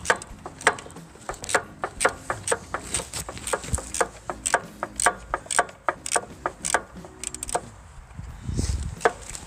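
A wrench works a hydraulic hose fitting in short strokes, giving sharp metallic clicks about twice a second, as the fitting is turned a little at a time. A low rumbling thump comes near the end.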